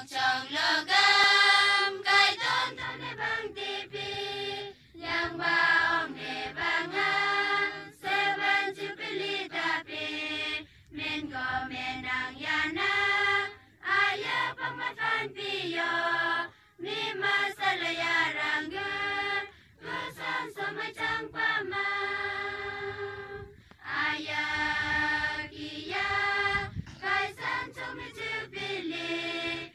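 Mixed choir of young men and women singing a song in unison, unaccompanied, in held phrases broken by short pauses for breath.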